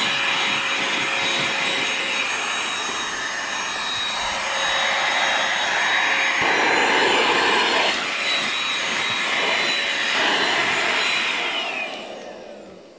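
Handheld vacuum cleaner running over a shaggy rug: a steady rush of air with a high motor whine, its sound changing as the nozzle moves. Near the end it is switched off and the motor winds down with a falling whine.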